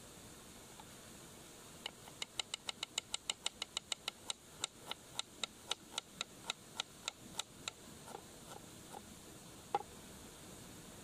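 Knife chopping an onion on a wooden cutting board: a quick, even run of sharp taps, about four a second, starting about two seconds in and slowing near the end, followed by a few scattered cuts.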